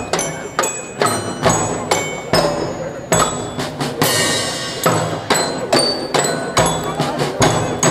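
March-like festival music played on drums by the children aboard the Dutch-ship float: steady drum beats about two a second, with ringing tones above them and a cymbal crash about four seconds in.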